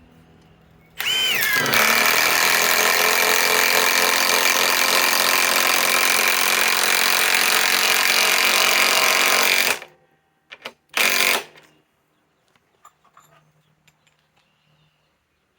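Milwaukee M18 Fuel Gen 2 mid-torque cordless impact wrench spinning up and hammering steadily for about nine seconds, then stopping, followed by two short trigger bursts.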